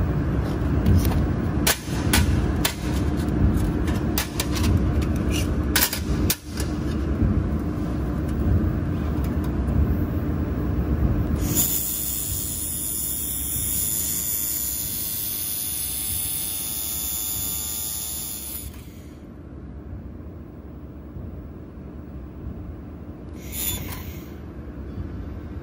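Handheld fiber laser welder with wire feeder: a steady low rumble with several sharp clicks, then about halfway through a welding pass of roughly seven seconds, heard as a high hiss with a thin high whine, which stops and leaves a quieter background.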